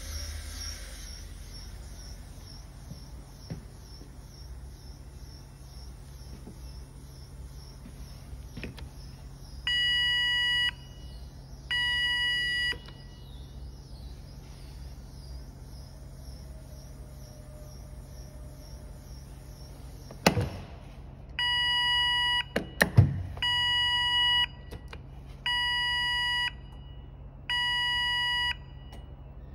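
Mixing-vessel control panel's alarm buzzer beeping: two one-second beeps, then a couple of sharp clicks, then four more beeps about two seconds apart. A steady low hum from the running mixer drive lies underneath.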